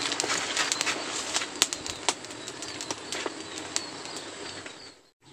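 Dense crackling and snapping of dry twigs and leaves: a spray of sharp clicks over a rustling hiss. It cuts out briefly near the end.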